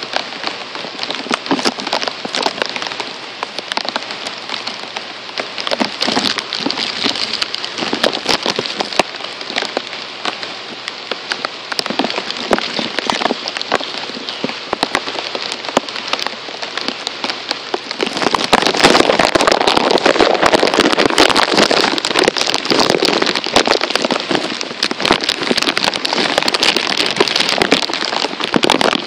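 Heavy rain pouring down, a dense hiss full of close individual drop hits. It grows louder about two-thirds of the way through.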